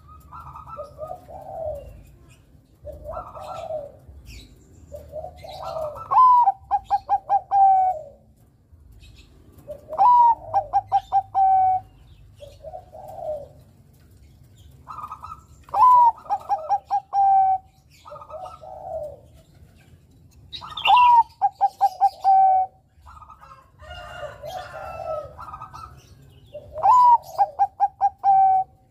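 A Bangkok-type zebra dove (perkutut) sings its cooing song over and over, about every five seconds. Each phrase is a soft coo, then a rising note that breaks into a quick run of short coos.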